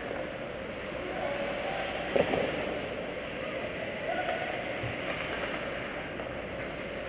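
Ice hockey game in progress: skates on the ice and distant players' shouts, with one sharp clack about two seconds in.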